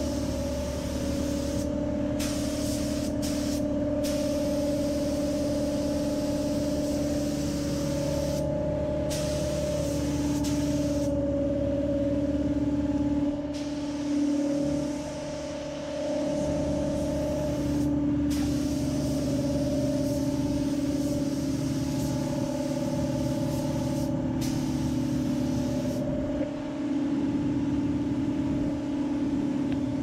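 Compressed-air paint spray gun hissing as it lays down high-build primer, the hiss starting and stopping in short passes as the trigger is pulled and released, over a steady mechanical hum.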